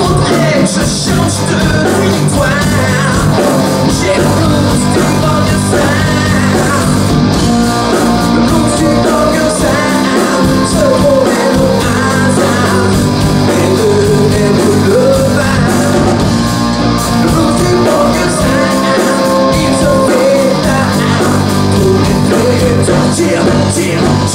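Live rock band playing loud, with a singer's lead vocal over electric guitars, bass and drums, recorded straight from the camera's microphone in the audience.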